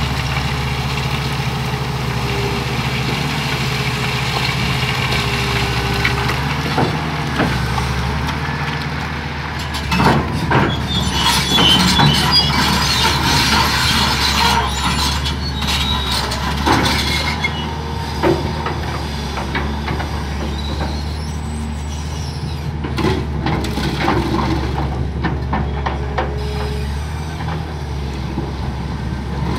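Caterpillar 375L hydraulic excavator's diesel engine running steadily as the machine digs and dumps, with loose rock clattering and knocking against the bucket, loudest from about ten to seventeen seconds in, and a few single knocks later.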